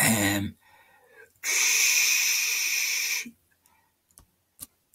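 A man's long, noisy breath close to the microphone, lasting a little under two seconds, followed by a few faint clicks near the end.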